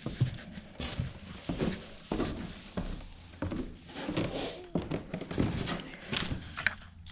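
Footsteps coming down the barn stairs: a series of uneven knocks, a step about every half to three-quarters of a second.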